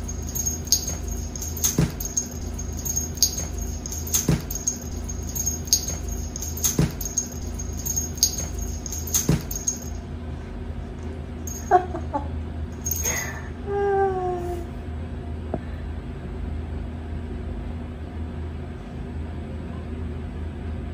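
Domestic tabby cat, irritated by fresh ear drops, thrashing on a tile floor with short knocks about once a second. After that come a brief cry and then a longer meow that falls in pitch, about two-thirds of the way through.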